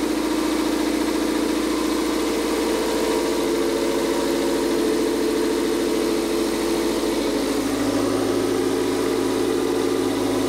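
Toyota MR-S's 1.8-litre 1ZZ-FE four-cylinder engine idling steadily, freshly started after a valve (tappet) cover and gasket replacement. About eight seconds in, its note shifts slightly lower and a low hum joins it.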